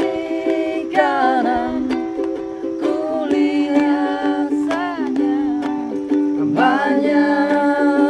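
A ukulele strummed in chords while a man sings along.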